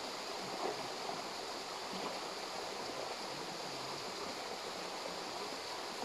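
Steady rush of a waterfall and its stream, an even hiss of running water.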